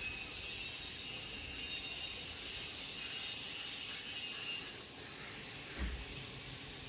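Faint metallic clinks of hand tools working on a motorcycle engine's timing chain roller bolt, over a steady high hiss that fades out a little past the middle, with a single low thump near the end.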